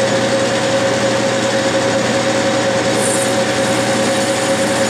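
Clausing metal lathe running, its spindle at about 700 rpm, with the tool taking a light finishing cut on a brass bushing under power feed. A steady whine over an even mechanical hum.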